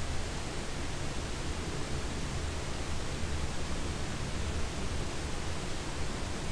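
Steady, even hiss with a low hum underneath, unchanging throughout; background noise with no distinct event.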